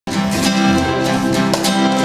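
Acoustic guitar strummed in a steady rhythm, its chords ringing on between strokes.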